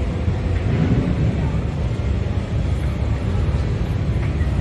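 Steady low rumble and background hubbub of a large, busy exhibition hall, with no single sound standing out.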